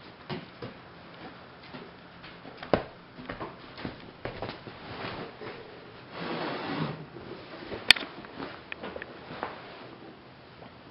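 A Doberman playing with and chewing a hard rubber toy ball: scattered clicks and knocks of teeth, paws and ball, with a rustling stretch about six seconds in as the dog moves on a fabric couch, and one sharp click near eight seconds.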